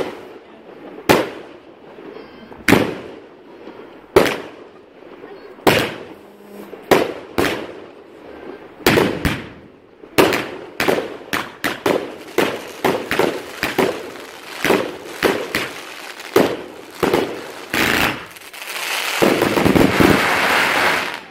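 Finale firework firing a series of sharp bangs, spaced out at first and quickening to several a second about halfway through. It ends in a dense continuous crackle for the last couple of seconds.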